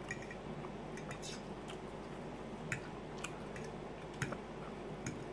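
A metal fork clicking and scraping against a ceramic plate in a handful of short, scattered clinks, the sharpest about two-thirds and four-fifths of the way through, with quiet chewing of the food between them.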